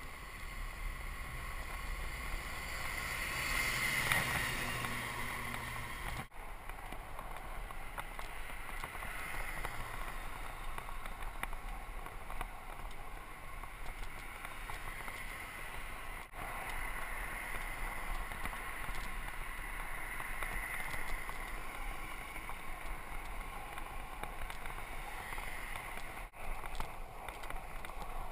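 Steady rush of wind and tyre noise from a bicycle riding along a road, picked up by a handlebar- or helmet-mounted action camera. It swells louder about four seconds in, and drops out briefly three times.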